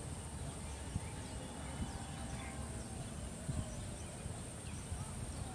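Outdoor background of low rumble and a steady high hiss, with faint, scattered bird chirps.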